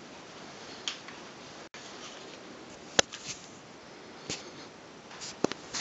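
A steady faint hiss with a handful of short, sharp clicks and ticks scattered through it, the loudest about three seconds in.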